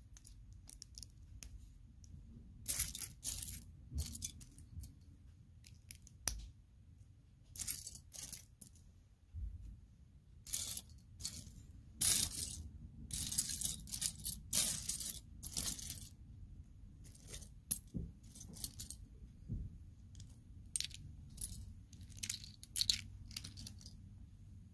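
Loose plastic Lego pieces clattering and clicking against each other as hands rummage through a pile of them, in irregular bursts.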